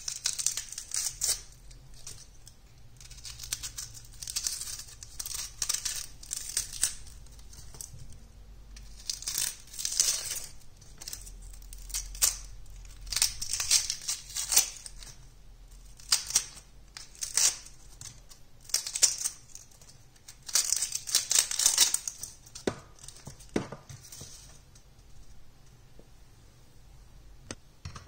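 Dry, papery onion skin being peeled and torn off by hand, in repeated bursts of crackling, tearing rustles, with two light knocks a few seconds before the end.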